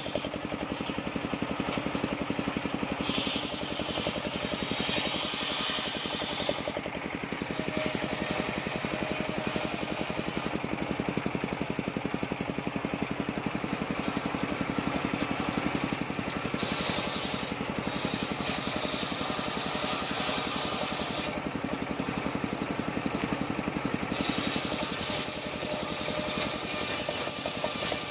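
Engine-driven portable circular sawmill running steadily while its large blade rips a waru (sea hibiscus) plank lengthwise. The engine's fast, even pulse runs underneath, and a higher hiss of the blade in the wood swells and drops away several times as the cut goes on.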